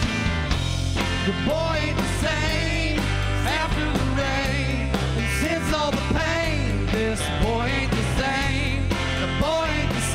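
Rock band playing live, a lead singer's voice over the full band with steady bass and regular drum strokes.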